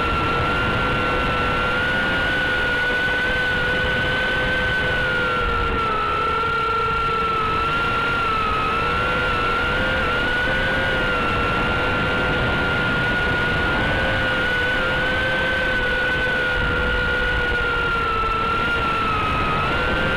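Brushed-motor tiny whoop quadcopter's motors and propellers whining steadily, the pitch drifting slightly up and down with throttle.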